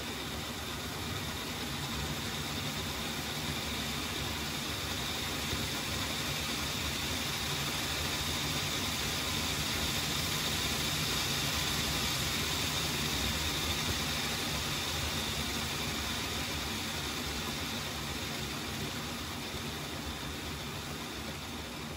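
Piko H0 S499 'Laminátka' model electric locomotive running on a rolling-road test stand, its motor and wheels whirring steadily on the brass rollers. The sound swells gradually to a peak about midway and eases off near the end.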